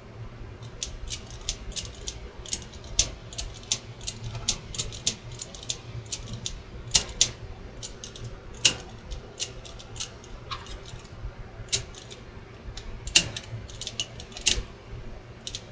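Piano-key transport controls of a Realistic SCT-10 cassette deck being pressed and latched over and over: irregular sharp mechanical clicks, a couple a second, some in quick pairs. The mechanism is sticking, which the owner puts down to a need for lubrication.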